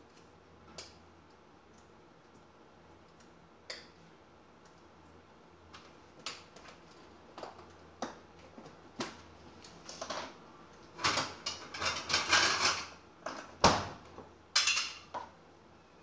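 Kitchen clatter of bowls and utensils being handled and set down on a counter: scattered clicks and knocks, busiest in a run of clattering past the middle, followed by one sharp knock.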